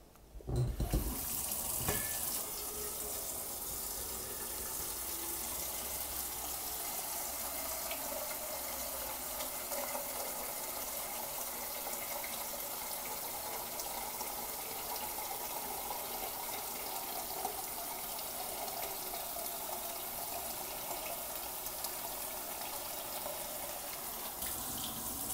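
Cold tap water running in a steady stream into a stainless steel pot in a sink, filling it. The water starts about half a second in, with a click or two as the tap opens.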